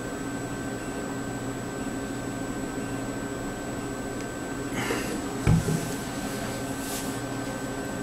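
Steady background hum, with brief handling rustles and one dull thump about five and a half seconds in as a plastic bottle is set down on a wooden tabletop.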